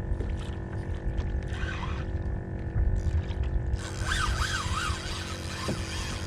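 Wind rumbling on the microphone under faint background music with steady sustained notes. About two thirds of the way through, a brighter hiss comes in with quick warbling rising-and-falling notes.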